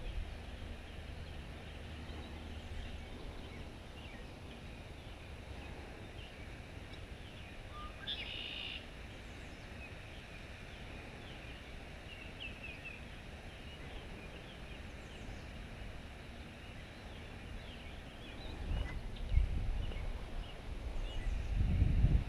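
Outdoor ambience with birds chirping on and off and one louder call about eight seconds in. From about eighteen seconds in come loud, uneven low rumbles on the microphone.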